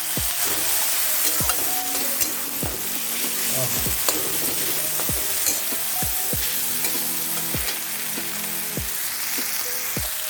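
Tomato masala sizzling in hot oil in a kadhai while it is stirred, with a steady frying hiss throughout. The tomatoes are cooking down to soften.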